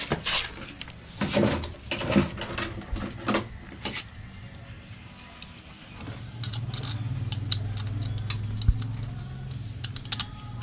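Clicks and knocks of metal parts handled at an electric scooter's rear disc brake caliper and rotor. From about six seconds in, a steady low hum takes over.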